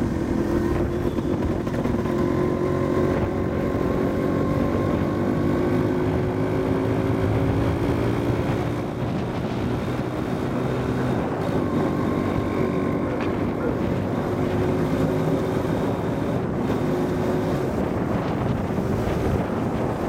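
Motorcycle engine running while riding, its pitch drifting slowly up and down, with wind buffeting the microphone.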